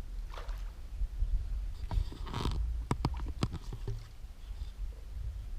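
A crappie being landed with a landing net in a boat: a swish, then a quick cluster of sharp knocks about halfway through, over a steady low rumble.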